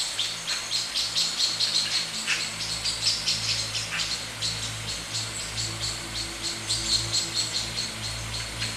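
Birds chirping in a tropical garden: many quick, high, repeated chirps overlapping throughout, over a low steady hum.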